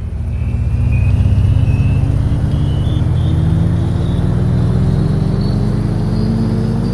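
Intro music: a loud, deep synth drone that slowly rises in pitch, with a faint row of short high notes stepping upward over it.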